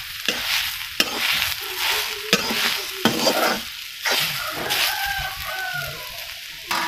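A steel ladle stirring and scraping leafy greens around a metal kadai as they fry and sizzle, with sharp clicks of metal on metal at each stroke. The stirring stops about two-thirds of the way through, leaving softer sizzling.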